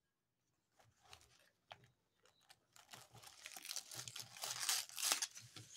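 Thin cellophane-like plastic wrapping crinkling and tearing as it is pulled open by hand. A few light ticks come first, then the crinkling grows dense and louder in the last three seconds.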